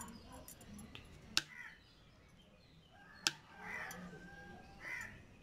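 Two sharp knife strikes on a plastic cutting board, about two seconds apart, as button mushrooms are cut into pieces, with chickens clucking faintly in the background.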